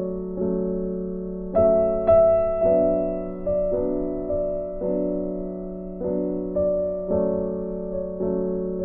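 Gentle background piano music: chords struck at an even, unhurried pace, roughly one every half second to second, each fading before the next.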